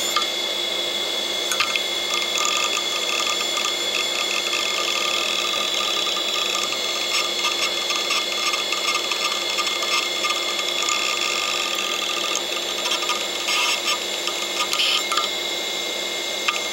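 Old 8 GB hard drive running with its cover off: a steady high whine from the spinning platter and spindle motor, with irregular clicking and chatter from the read/write head arm as it is pushed about with a toothpick while the drive keeps trying to copy files.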